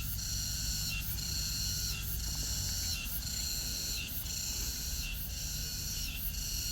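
Cicada calling in repeated high phrases about once a second, each phrase ending in a short falling note, over a steady low hum.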